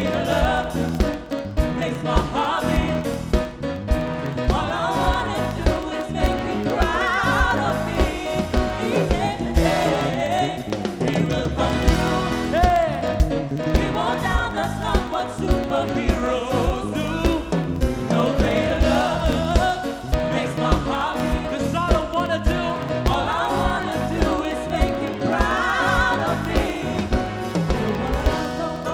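Gospel band playing live, with singers' voices over the band and a steady beat.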